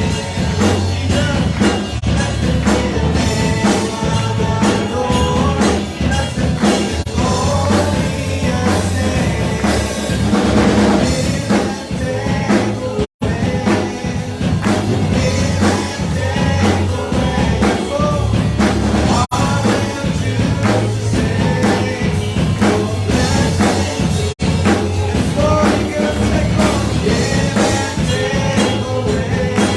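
Live church worship band playing a rock-style song with drum kit and singing. The sound cuts out for a moment about thirteen seconds in.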